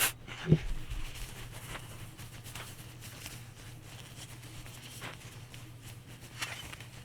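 Handling noises from cleaning a 1911 pistol's slide lock: a sharp click, a knock about half a second in, then faint rubbing and scratching. A low steady hum runs underneath.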